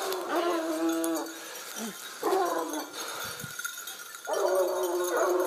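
Grand Bleu de Gascogne hounds baying in long drawn-out howls: three bouts, one at the start, a shorter one about two seconds in, and a longer one from about four seconds in.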